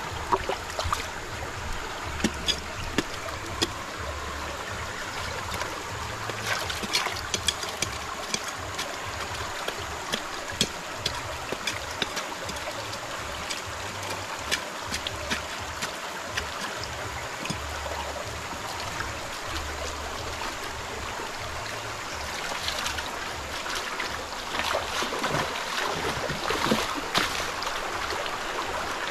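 Shallow stream running over rocks, with frequent small knocks and splashes as hands scoop and stir gravel and mud in the water.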